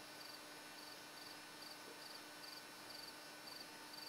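A cricket chirping faintly and steadily: short high trilled chirps about twice a second over a low hiss.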